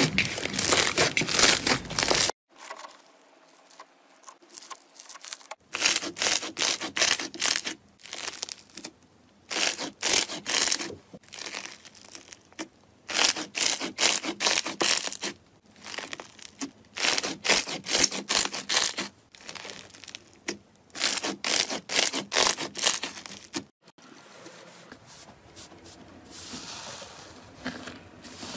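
Hands kneading and squeezing slime, making crackly, squishing noise in repeated bursts, one squeeze after another. The sound cuts off abruptly twice as it moves on to a different slime.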